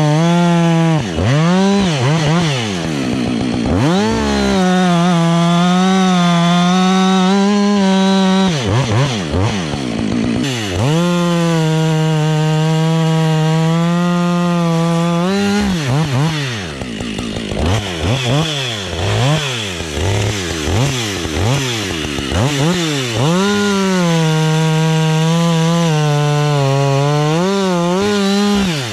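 Husqvarna 555 two-stroke chainsaw bucking a felled conifer for firewood. It runs wide open in long steady stretches, and several times the revs drop and climb back up as the throttle is let off and squeezed again between cuts.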